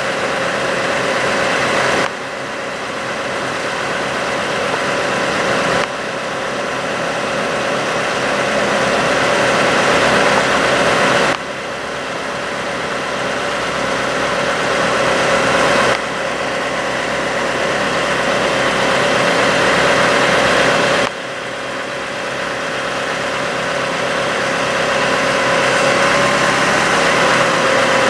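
Bucket truck engine running steadily with the PTO engaged, with a steady whine over it, while the aerial boom is operated. The level drops suddenly a few times and creeps back up.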